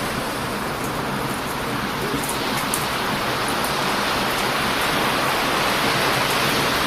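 Heavy ocean surf washing steadily on a beach, swelling about halfway through as a wave comes in, with the faint sharp crackles of a burning wood fire on top.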